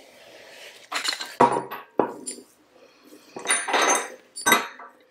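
Metal parts of a Harris Model 25 welding regulator (bonnet, spring and body) clinking and knocking against a wooden workbench as the regulator is taken apart. There are about six sharp clinks at irregular intervals, some with a brief metallic ring.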